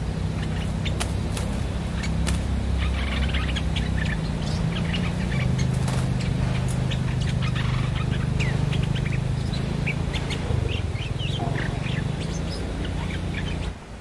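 Bulbuls calling in many short, quick chirps, over a loud steady low rumble.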